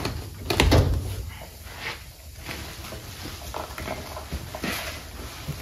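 Steel tool-cabinet drawers and loose parts being handled: a loud knock or two about half a second in, then scattered lighter clicks and rustling as the drawers are searched.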